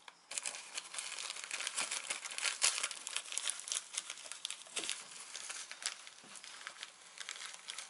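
Thin plastic bag crinkling and rustling as a hand rummages in it, an irregular crackle that is loudest about two and a half to three and a half seconds in.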